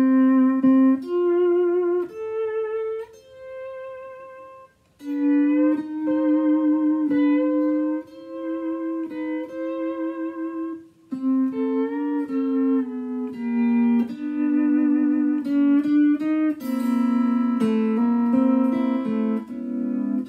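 Rickenbacher NS electric lap steel guitar played solo with a steel bar: picked single notes and chords with wavering bar vibrato and sliding pitches. Each note starts with a sharp percussive attack and dies away quickly, the short sustain the owner hears in this guitar.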